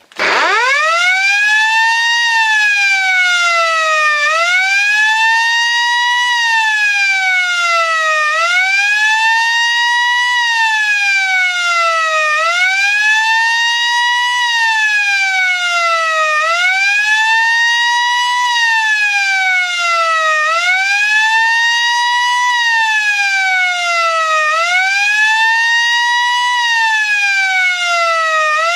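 Sterling F2 siren sounding the German warning signal: a loud wail that starts up at once, then rises and falls in pitch over and over, each rise quicker than the fall, about once every four seconds.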